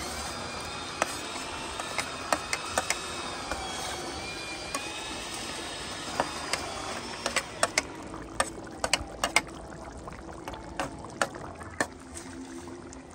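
Chef's knife scraping and tapping across a plastic cutting board as chopped bell peppers are pushed off into a simmering cauldron: a string of sharp clicks, coming thicker in the second half.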